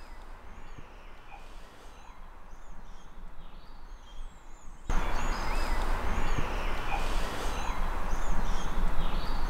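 Outdoor background hiss with small birds chirping. About five seconds in, the hiss jumps sharply louder where the track has been amplified, and the birds carry on chirping through it.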